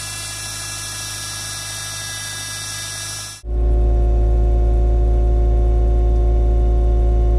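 Subaru WRX STI with its flat-four engine running, steady hum and whine from the car, possibly the power steering pump noise that the owner puts down to a fluid leak. A little over three seconds in the sound cuts abruptly to a much louder, steady low rumble with a few steady whining tones.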